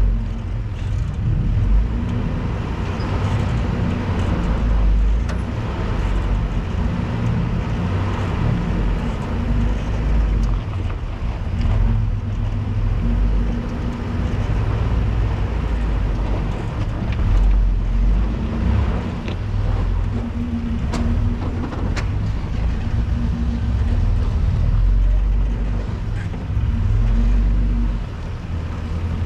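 Off-road 4x4 truck's engine running steadily at low revs while driving a dirt trail, with a few sharp clicks and knocks.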